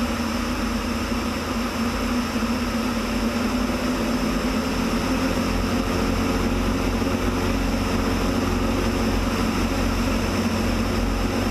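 Light propeller airplane's engine running steadily in flight, with rushing air noise over the on-board camera; it gets slightly louder about halfway through.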